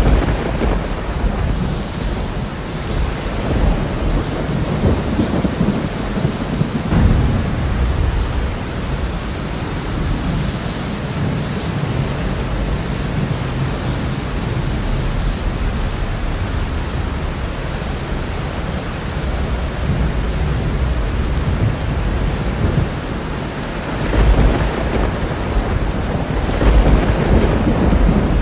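Thunderstorm: steady heavy rain with rolling thunder rumbling underneath, swelling louder about a quarter of the way in and again near the end.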